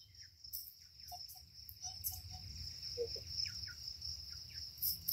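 Chickens clucking softly in scattered short notes, over the steady high chirring of insects.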